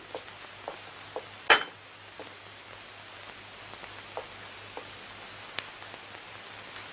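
Sparse light clinks and knocks of plates and spoons at a meal table, with one sharper knock about a second and a half in, over a steady hiss and low hum.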